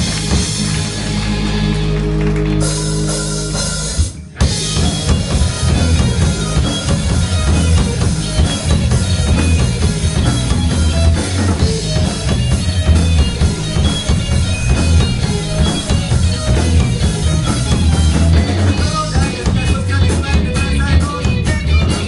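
Rock band playing with drum kit, bass and electric guitar: held chords, a brief break about four seconds in, then the full band comes in with a driving drum beat.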